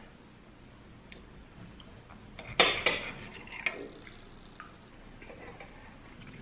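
Clinking and clattering of dishes and cutlery, a short cluster of sharp knocks about halfway through over a quiet background.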